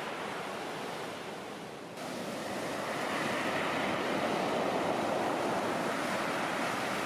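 Rough, storm-whipped sea surging and breaking on the shore, with wind. The noise steps up abruptly about two seconds in and swells as a wave rolls in.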